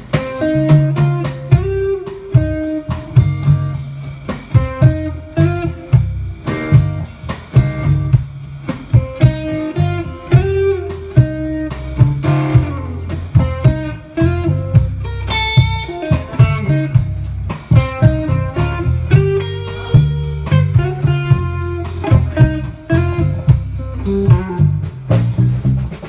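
Live band playing an instrumental through a PA: an electric guitar picks out a melody over bass guitar and a steady drum-kit beat, with no singing.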